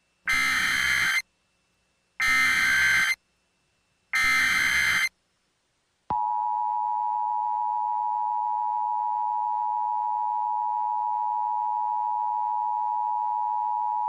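Emergency Alert System tones. Three short bursts of header data, each about a second long, come about two seconds apart. About six seconds in, the two-tone attention signal starts and holds steady.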